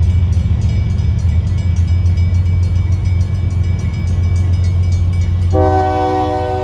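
Low rumble of a Union Pacific diesel freight locomotive approaching slowly. About five and a half seconds in, its air horn sounds, a steady chord of several notes held without a break.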